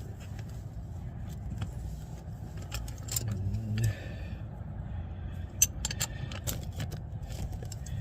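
Hand tools clinking against metal drum-brake parts: scattered sharp metallic clicks, the loudest about five and a half seconds in, over a steady low hum.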